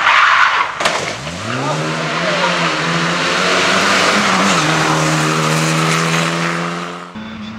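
Racing car engine and tyres: a sharp knock, then the engine revs up and holds high revs steadily under a rough, hissing tyre noise typical of skidding. Near the end the sound cuts abruptly to another steady engine note.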